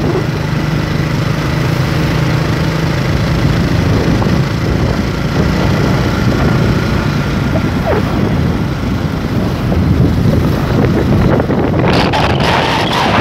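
Engine of a moving vehicle running steadily, with road and wind noise rushing past the microphone. Near the end, heavy wind buffeting on the microphone comes in.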